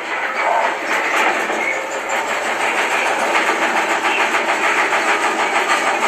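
Consul top-load washing machine spinning fast in a suspension test, the tub giving a steady, rapid clatter; one of its suspension rods has come off, so the tub is running loose.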